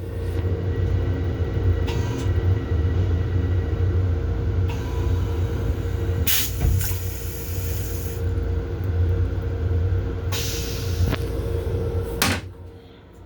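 Steady low rumble of a Metro-North M7 electric railcar heard inside its restroom, with a constant hum and a few clicks and short hisses. The sound drops away about twelve seconds in.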